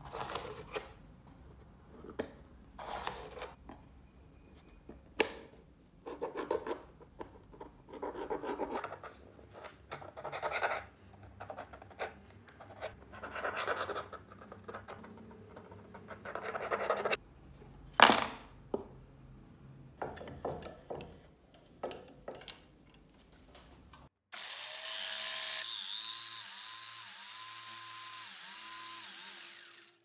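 Hands moving plastic knife handle scales and a walnut board about on a wooden bench, with scattered rubs, scrapes, light knocks and a pen marking the wood. About six seconds before the end a power tool starts suddenly, runs steadily and cuts off.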